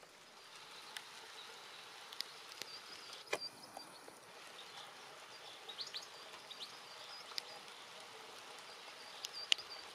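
Faint outdoor ambience: a steady hiss with a small songbird's short, high chirps in several quick runs, and a few sharp ticks, the loudest near the end.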